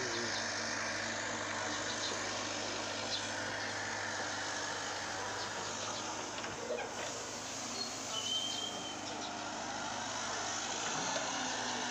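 Heavy machinery running steadily: a constant engine-like hum under a broad hiss.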